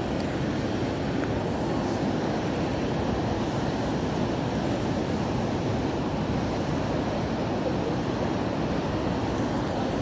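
Ocean surf breaking and washing up a sand beach: a steady, unbroken wash of waves.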